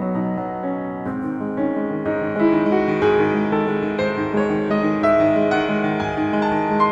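Background piano music, notes changing every second or so.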